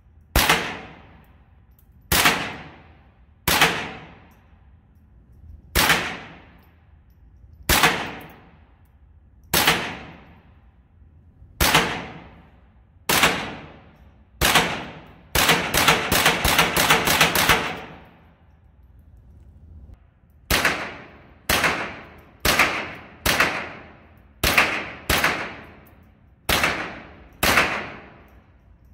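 Ruger 10/22 semi-automatic .22 LR rifle firing CCI Mini-Mag 36-grain hollow-point rounds, each shot echoing in an indoor range. First come single shots a second or two apart, then a quick string of about eight shots in rapid succession around the middle, then more shots about a second apart.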